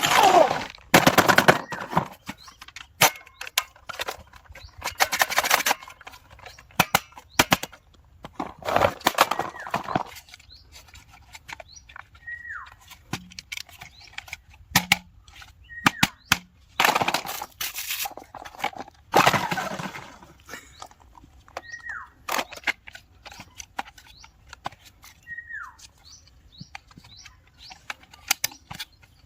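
Toy guns being cocked and fired: irregular sharp clicks and snaps with several louder short bursts of noise, plus a few brief falling chirps.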